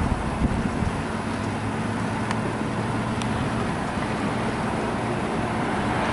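Steady low engine rumble of a vehicle idling close by, with outdoor traffic noise, and two faint clicks about two and three seconds in.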